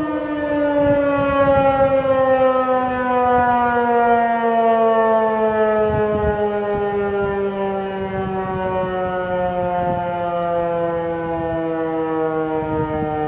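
Outdoor warning siren sounding and winding down, one steady wail whose pitch falls slowly and evenly.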